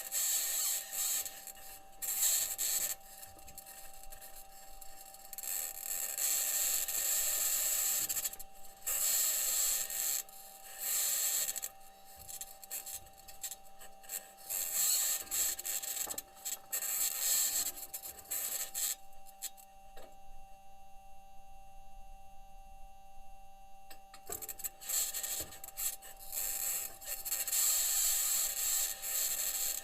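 Perseverance rover's wheels and body grinding and scraping as it drives over Martian rock, picked up by its onboard microphone, over a steady whine. The scraping comes and goes in patches and drops out for about five seconds past the middle, leaving only the whine, which NASA engineers think may be electromagnetic interference from the rover's electronics.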